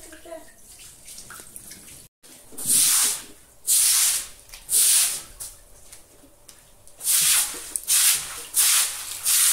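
Broom scrubbing a wet concrete floor: repeated swishing strokes starting about two seconds in, roughly one a second and coming quicker near the end.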